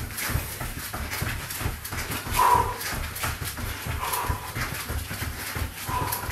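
Quick, rhythmic thuds of feet and hands working on the floor and hard breathing from people doing mountain climbers, with three short, high squeaks along the way.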